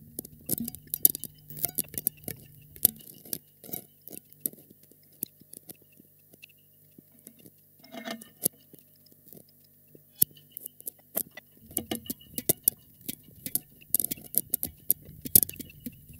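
Experimental improvised sound-art recording: sparse, irregular small taps, clicks and rattles over a low steady hum. The hum drops out about three seconds in and returns near the end.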